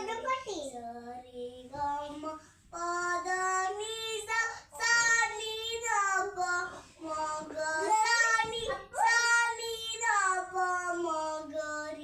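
A child singing a melody unaccompanied, in several phrases of long held notes with short breaks between them.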